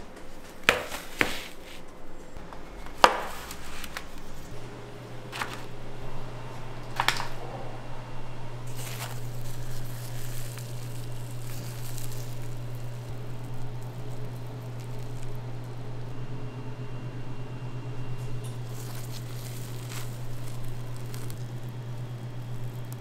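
A few sharp metal clacks in the first seven seconds, from a skimmer on a wire cooling rack, then the soft squish and crackle of fried doughnuts, one sugar-coated and one kkwabaegi twisted doughnut, being torn apart by gloved hands. A steady low machine hum comes in about four and a half seconds in and stays.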